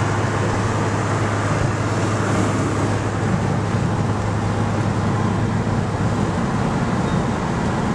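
Steady engine drone of a turbocharged Pontiac Grand Prix 3.1 V6, with tyre and wind noise, heard from inside the cabin while cruising.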